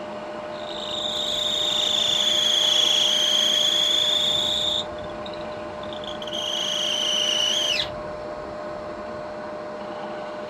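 Wood lathe running with a steady hum while a small parting tool cuts into the spinning wood, giving a high whistling squeal twice: the first about four seconds long, the second shorter and bending in pitch as it stops.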